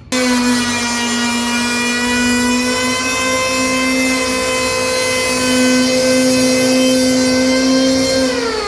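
Handheld electric planer running with a steady, high motor whine. The pitch drops near the end as it slows down.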